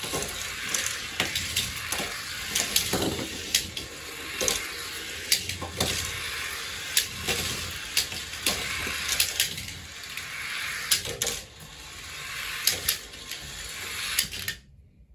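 Die-cast toy police cars rolling down a plastic rain gutter: a steady rolling hiss with frequent clicks and clatters as the cars knock against the plastic. It cuts out just before the end.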